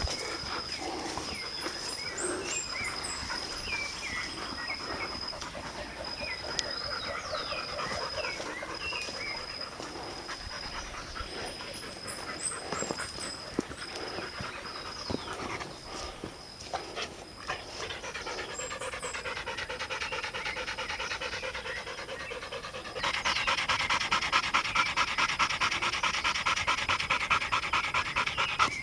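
Dog panting, getting louder and closer about two-thirds of the way in. High chirps come and go, and a steady high whine runs through the first half.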